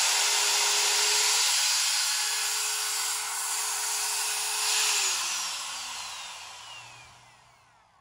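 Skil plunge router running with a steady whine as it cuts a shallow, flat-bottomed recess in a wooden window sash for a Dutchman patch. About five seconds in it is switched off, and its pitch and loudness fall as the motor spins down.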